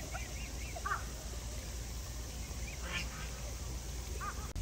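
Chinese geese (domestic swan geese) calling: short calls in small clusters, several in quick succession a few times through, over steady low background noise.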